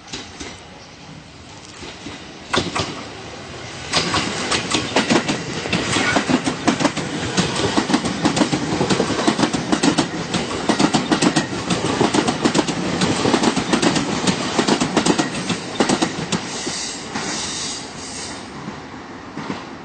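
Train passing on the rails, its wheels clicking over rail joints in a quick run of clicks that swells about four seconds in and tapers off near the end.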